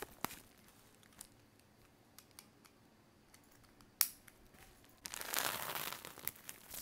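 Plastic poly mailer being handled, with a few light knocks and a sharp click about four seconds in. From about five seconds in comes a sustained crinkling as the mailer is cut and pulled open.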